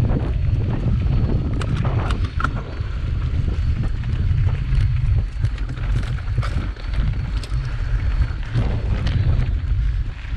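Wind buffeting the microphone of a camera riding on a mountain bike as it climbs a rocky dirt trail, a heavy steady rumble. Scattered clicks and rattles from the bike and its tyres over loose stones and dirt.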